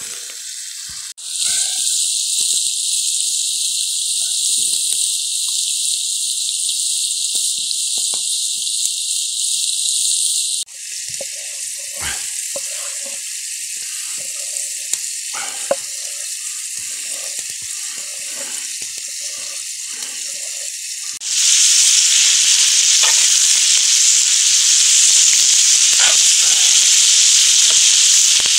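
Pork frying in a small Muurikka pan over an open fire, a steady loud sizzle that changes abruptly in level and tone about a second in, again about a third of the way through and again about two-thirds through, and is loudest at the end. Through the middle stretch, scattered knocks, as of a knife on a wooden cutting board, sound over a quieter sizzle.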